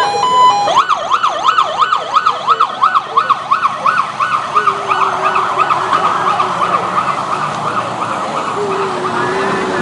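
Emergency sirens on a police and prison-vehicle convoy, wailing in a fast yelp that sweeps up and down about twice a second. Sirens overlap in the second half.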